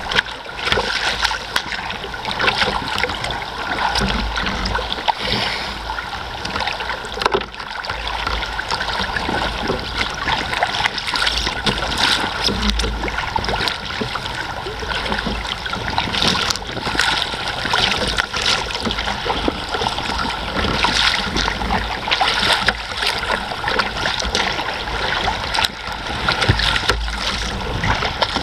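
Choppy sea splashing and slapping irregularly against a sea kayak's hull as it paddles through rollers, with wind rumbling on the microphone.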